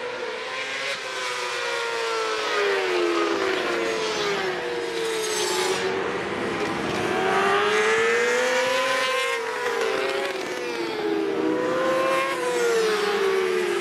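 Several J-GP2 road-racing motorcycles running hard through corners. Their engines fall and rise in pitch over and over as the riders brake, shift and accelerate, with the tones of different bikes overlapping as they pass.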